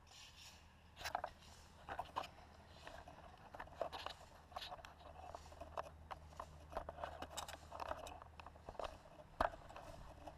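Faint, irregular crunches and clicks of handling and steps in packed snow, heard through the camera's housing; the quadcopter's motors are not yet running.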